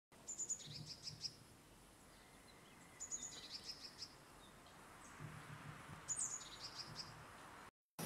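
Songbird singing three short, similar twittering phrases about three seconds apart, each opening with a high note and falling away in a quick run of notes.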